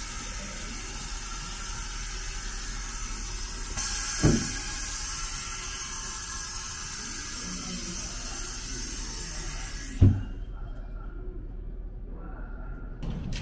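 Two halves of a 285 series Sunrise Express train uncoupling: a steady hiss of compressed air, with a thud about four seconds in and a louder clunk about ten seconds in, where the hiss cuts off suddenly.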